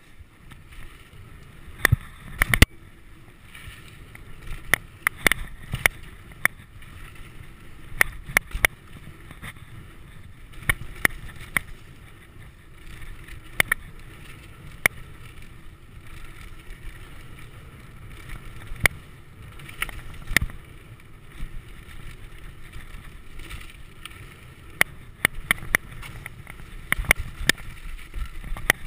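Mountain bike riding down a dirt trail: a steady rumble of tyres on the ground and wind on the microphone, with frequent sharp clacks and rattles as the bike jolts over bumps.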